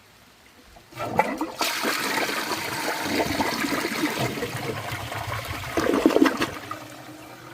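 Eljer St. Clair front-flush toilet flushing. A few clicks of the trip lever come about a second in, then water rushes through the bowl, with a louder gulp near six seconds. It then fades into the quieter hiss of the tank refilling. The owner rates it as not the greatest flush for a front flusher.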